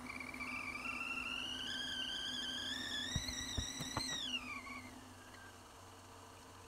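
Stovetop whistling kettle on a gas hob coming to the boil: its whistle rises steadily in pitch for about four seconds, then drops and fades as the kettle is lifted off the burner, with a few light clicks as it is handled.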